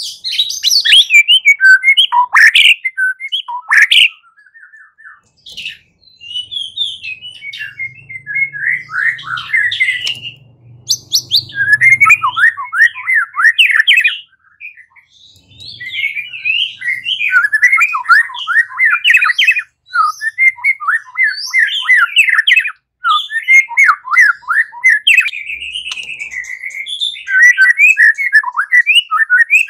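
White-rumped shama (murai batu) singing its fighting-style song: fast, varied runs of chirps, trills and whistles in long bursts. It breaks off briefly about four seconds in and again midway.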